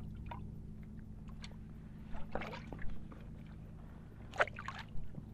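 Steady low hum aboard a small inflatable fishing boat, with a few short knocks and rustles, the loudest about two seconds in and again a little after four seconds.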